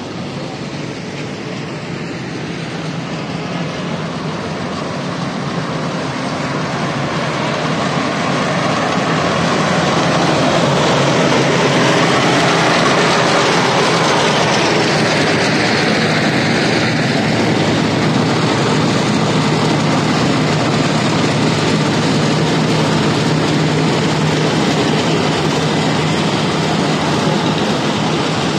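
Diesel engines of road-paving machinery (asphalt paver and road roller) running with a steady low hum and a broad rush of noise, growing louder over the first ten seconds or so, then steady.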